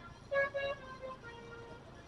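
Bus 'telolet' multi-tone air horn sounding two short notes about a third of a second in, followed by fainter, lower horn tones.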